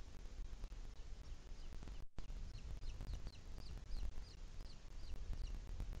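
Booted eagle calling: a quick series of about a dozen short, high, down-slurred notes, about four a second, starting about halfway through, likely the nestling begging while it is being fed. Under it runs a low steady rumble, with a brief dropout of all sound a little before the calls begin.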